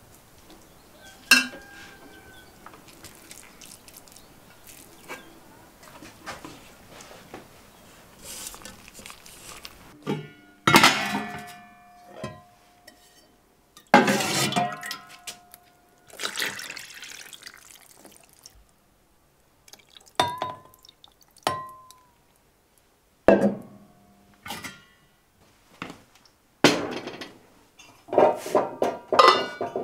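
Dishes and cutlery clinking as tableware is handled and set down: a string of separate sharp clinks, some ringing briefly, with quieter handling noise between them.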